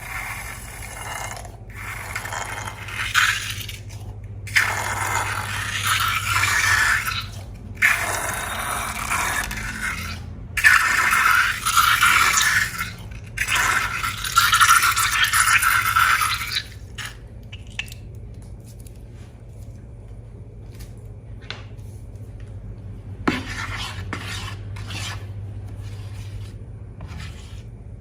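Slime being scraped and mixed in a container, in long noisy strokes with short pauses for the first sixteen seconds or so. Then quieter handling with scattered clicks and one sharp tap past twenty seconds.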